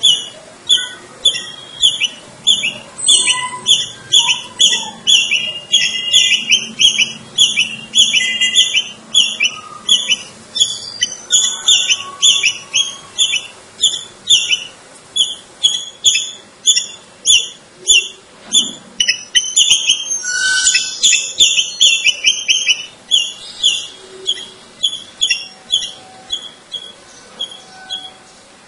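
Palm squirrel giving its repeated high-pitched chirping call, a steady run of short sharp chirps at about two a second, like the chip-chip alarm call of these squirrels.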